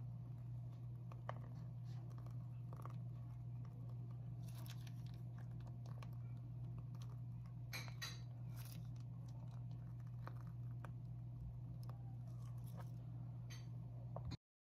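Soft crackling and squishing of a plastic piping bag being squeezed as cream is piped out, with a few sharper clicks, over a steady low hum; everything cuts off suddenly near the end.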